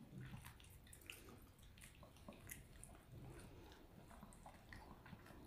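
Faint, scattered wet clicks and smacks of poodles chewing and licking soft sausage treats taken from a hand.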